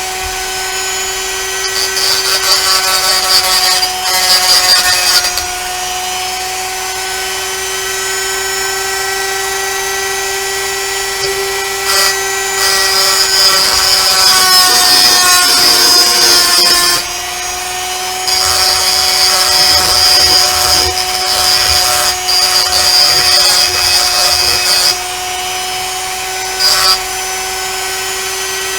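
Handheld rotary tool running at speed with a steady high whine, its bit pressed against a pewter cast in repeated stretches of grinding to take off mould lines. The whine dips a little in pitch under the heaviest grinding, about halfway through.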